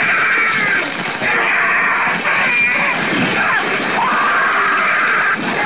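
Film soundtrack of a shark attack on a boat: a man screaming and yelling over churning, splashing water and crashing.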